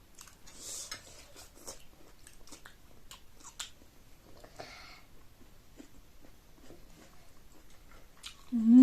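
Close-up chewing and mouth smacking while eating chow mein noodles: many small, quiet wet clicks and smacks. Near the end a loud hummed "mmm" of enjoyment.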